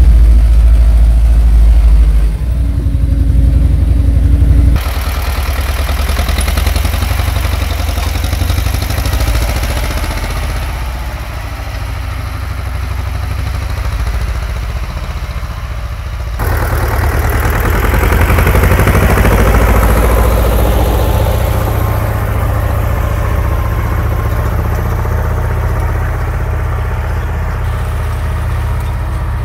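Old Władimirec T-25 tractor's two-cylinder air-cooled diesel running steadily, first heard from the driver's seat and then from beside the field as it pulls a tine cultivator. The sound changes abruptly about five and sixteen seconds in.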